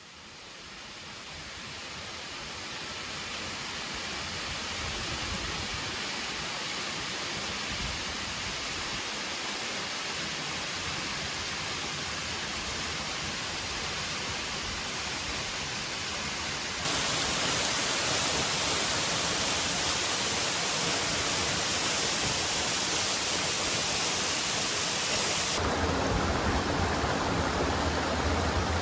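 Steady rush of falling water from a mountain waterfall, fading in over the first few seconds. About seventeen seconds in it jumps abruptly louder and changes character again about nine seconds later.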